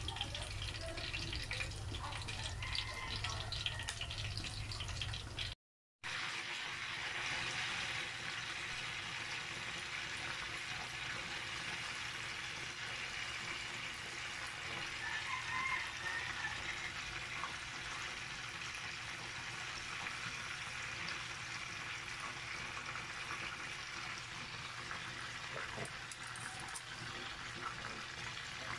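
Whole chicken frying in a pan of hot oil, the oil sizzling steadily. A low hum sits under the first few seconds, and the sound drops out for a moment at a cut about six seconds in.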